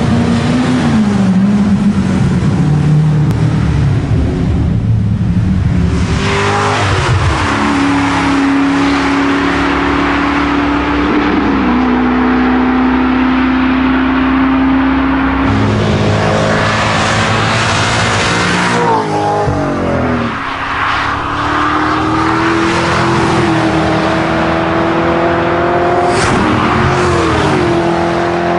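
C6 Corvette V8 through an Akrapovic titanium exhaust, revving and then pulling hard through the gears. The engine note climbs steadily and drops back sharply at each of several upshifts.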